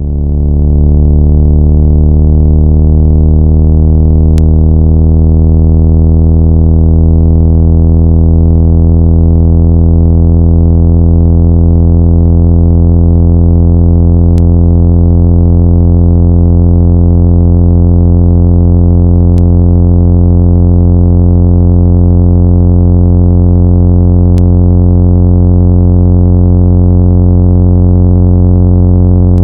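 Synthesized low buzzing tone, a 165 Hz speaker-cleaning signal, held steady and loud with many overtones. A few faint ticks are heard over it.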